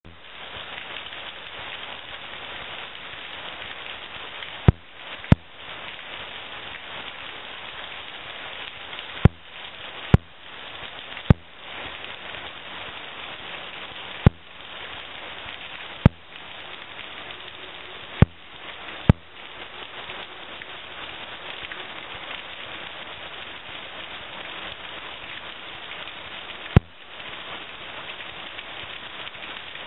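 Heavy hurricane rain pouring down: a dense, steady hiss of rain falling on pavement, cars and trees. About ten sharp clicks cut through it at irregular intervals.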